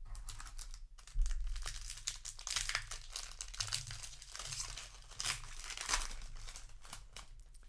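Foil wrapper of a Magic: The Gathering booster pack crinkling and tearing as it is ripped open and handled, a dense run of crackles.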